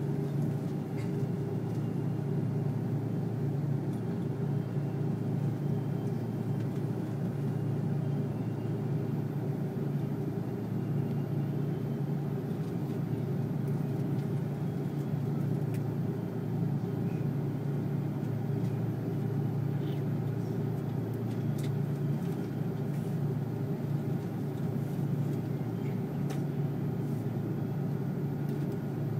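Steady low drone of engines and airflow heard inside the cabin of an Airbus A330-300 airliner.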